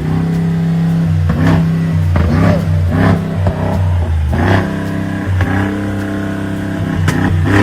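Mansory-tuned SUV's engine running and being revved several times, its pitch rising and falling with each rev.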